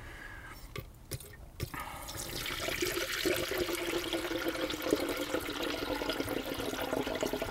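Distilled water pouring from a plastic jug into a funnel on the engine's coolant filler, refilling the cooling system. The pour begins nearly two seconds in and then runs steadily.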